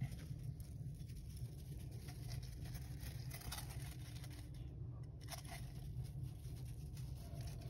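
A hamster nibbling seeds and rustling at its food, heard as faint scattered small crunches and crackles over a steady low rumble.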